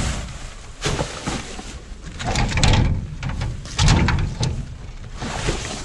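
Discarded items being rummaged through and shifted in a dumpster: irregular rustling and scraping with several dull knocks, the loudest a little past two seconds and about four seconds in.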